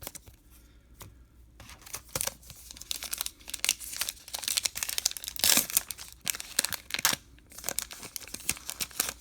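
Plastic wrapper of a baseball card pack being torn open and crinkled. It is a quick run of sharp crackles and rips that starts about two seconds in and is loudest a little past the middle.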